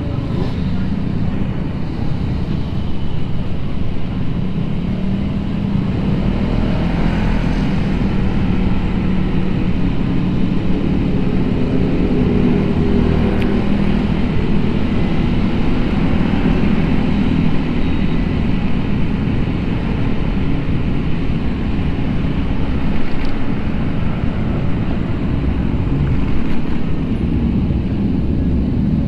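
Vespa Sprint S scooter being ridden through city traffic: its engine runs under way beneath a steady rush of road and wind noise, with other motorcycles and cars around it.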